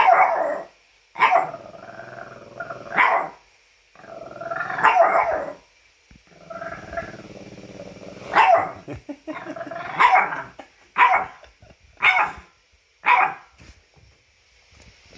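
French bulldog vocalising in a talkative string of drawn-out grumbling whines and barks, then four short, separate barks in the second half.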